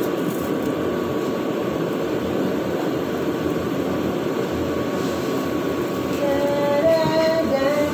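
Kitchen range hood's exhaust fan running with a steady, loud rushing noise. Near the end, faint wavering pitched tones sound over it.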